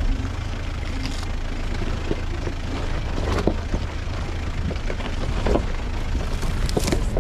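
A 4x4 off-road vehicle driving, its engine running low and steady, with a few sharp knocks and rattles along the way.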